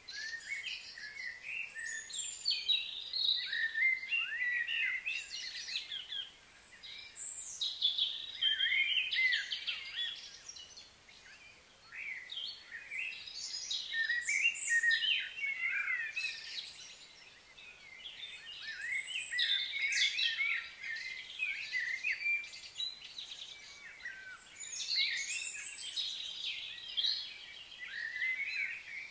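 Several wild birds chirping and singing at once, a dense chorus of quick, high chirps and warbles that swells and fades, with short lulls every few seconds.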